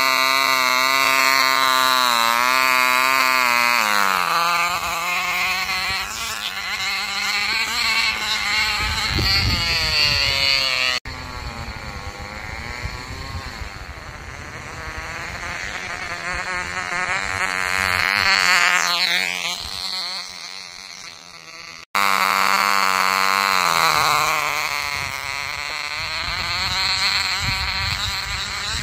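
Cox .049 two-stroke glow engine in a tether drag car, running flat out on nitromethane fuel with a high-pitched buzzing whine. The sound changes abruptly at two edits. About 19 s in, its pitch drops sharply as the car passes.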